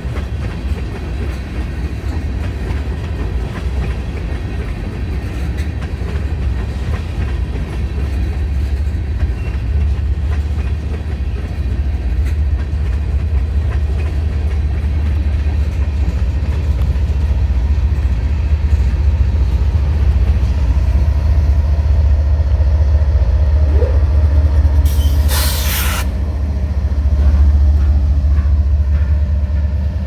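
Freight train of tank cars and covered hoppers rolling past close by, its wheels and cars making a steady, loud low rumble on the rails. In the last third, the engine of a Norfolk Southern mid-train distributed-power diesel locomotive comes up and adds a steady drone. About 25 seconds in, a short burst of hiss cuts through.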